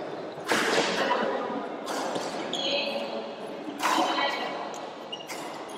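Badminton rally: rackets strike the shuttlecock four times, about a second and a half apart, each hit sharp and ringing briefly in a large hall.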